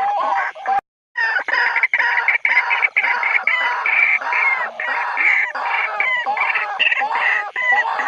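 White-breasted waterhen territorial call played back as a lure: a dense run of rapid, repeated calls, broken once by a brief silent gap about a second in.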